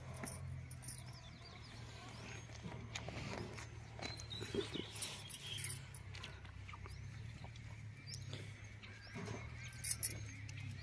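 Quiet rural outdoor ambience: scattered short bird chirps over a low steady hum, with a sharp click near the end.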